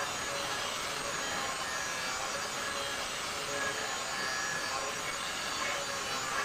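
Angle grinder with an abrasive disc grinding along the steel blade of a kukri knife, shaping it. The sound is a steady, even grinding.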